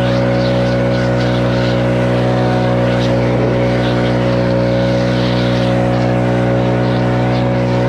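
Leaf blower running steadily at constant speed, drying wet stamped concrete after power washing.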